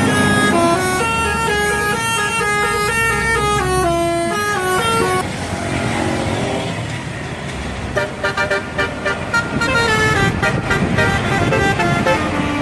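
Bus telolet horns, sets of musical air horns, playing a stepped multi-note tune. After a cut about five seconds in there is engine and road noise, and from about eight seconds a second telolet tune in quick, short pulsed notes.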